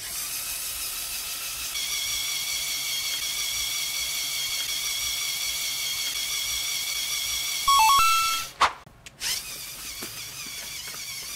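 Small electric motor and plastic gear train of a Lego Technic vehicle whirring steadily with a high whine as it climbs a steep ramp. About eight seconds in there is a short louder burst, a brief drop, then a second Lego vehicle's motor and gears start up, quieter.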